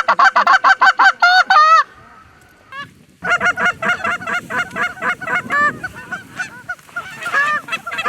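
Goose calling: a fast, evenly spaced run of clucks and two drawn-out honks that bend in pitch, then after a pause of about a second a denser stream of overlapping clucks and honks, the close, rapid cadence typical of hunters blowing short-reed Canada goose calls.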